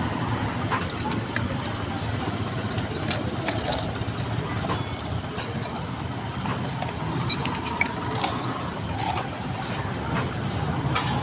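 Steady outdoor street noise like passing traffic, with scattered light clicks and taps.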